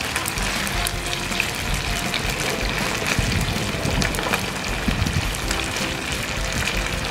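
Frog pieces sizzling and crackling in hot oil in a frying pan, a steady dense sizzle dotted with small pops. Background music plays underneath.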